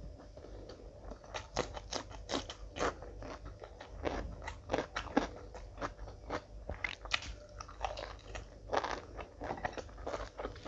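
Close-miked chewing and crunching of food, many quick crackly bites and wet mouth clicks in an uneven rhythm.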